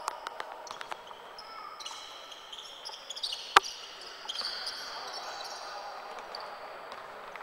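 Basketball game on a hardwood court: the ball thudding as it is bounced, passed and dribbled, with sneakers giving short high squeaks on the floor. One loud, sharp smack comes about three and a half seconds in.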